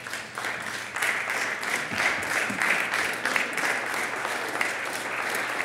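A small group of people clapping, steady applause of many quick overlapping claps.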